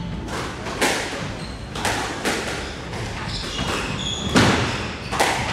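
Squash rally: a series of sharp hits of the ball off the rackets and walls, roughly one a second, the loudest about four and a half seconds in, with short high squeaks of shoes on the wooden court floor between them.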